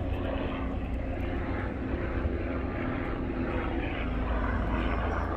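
Steady drone of an aircraft engine: a low rumble with faint steady engine tones.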